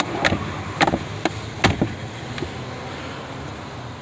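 Plastic clicks and knocks from a 2018 Dodge Challenger's glove box being swung back up and shut, about half a dozen in the first two seconds, then only a steady low background noise.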